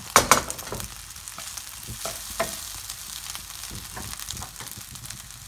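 Cooked egg fried rice sizzling in a nonstick pan while a wooden spatula stirs and scrapes through it, with sharp clacks of the spatula against the pan, loudest just after the start.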